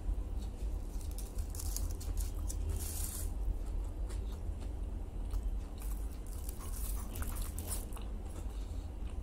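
Close-miked chewing and biting of a chicken salami roll, with several crisp crackles as the aluminium foil wrapping is handled, over a steady low hum.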